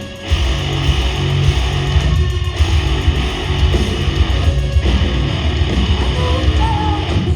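Live heavy metal band playing an instrumental passage: distorted electric guitars strumming over bass guitar and pounding drums, loud and dense, with no vocals.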